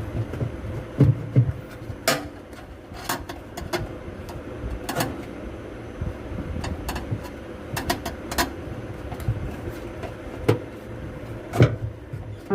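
Irregular sharp knocks and clicks, about a dozen, spread unevenly over a steady background hum with a faint steady tone; the loudest come about a second in and near the end.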